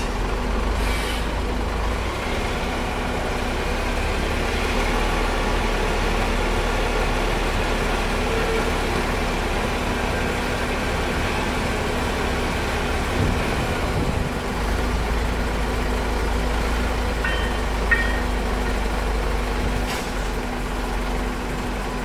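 Small diesel shunting locomotive's engine running steadily as it creeps slowly along the track. About three-quarters of the way through there is a brief high squeak and a click.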